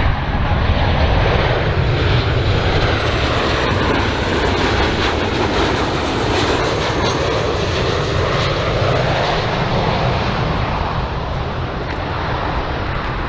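Boeing 737 twin-jet airliner on landing approach: steady rushing jet-engine noise with a faint high whine, easing slightly near the end.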